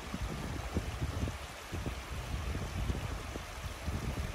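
Small mountain stream rushing and trickling over rock slabs, under an irregular low rumble of wind buffeting the microphone.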